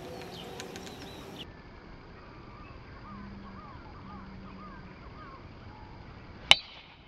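One sharp crack of a golf club striking a teed ball on a tee shot, about six and a half seconds in, by far the loudest sound. Before it, birds chirp faintly.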